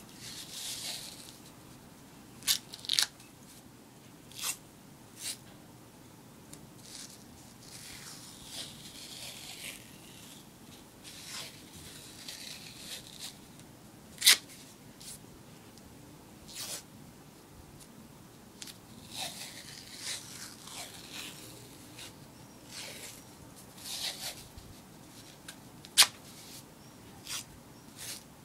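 White athletic tape being pulled off the roll and wrapped around an ankle: rasping stretches as the tape unspools, broken by several sharp snapping rips, the loudest about halfway through and near the end.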